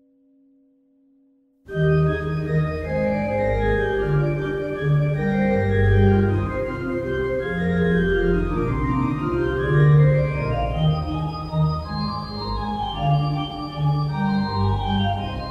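Organ music starts suddenly about two seconds in: sustained chords over held bass notes, with running lines of notes in the upper voices.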